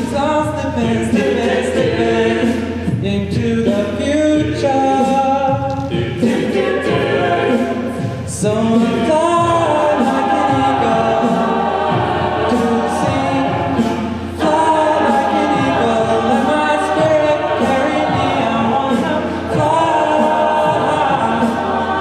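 A mixed a cappella ensemble of men's and women's voices singing a pop song arrangement in harmony, without instruments, over a steady percussive beat.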